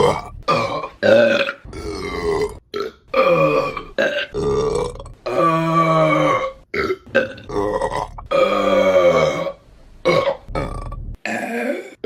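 A woman belching over and over, one burp close after another. Most are short, but two are long and drawn out, about five and about eight seconds in.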